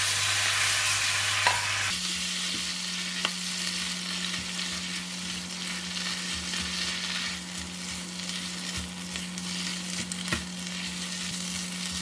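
Kailan leaves sizzling in hot oil in a nonstick wok as they are stir-fried with a silicone spatula, with a few light clicks of the spatula against the pan. The sizzle is loudest for the first couple of seconds after the leaves go in, then settles to a steady, quieter sizzle.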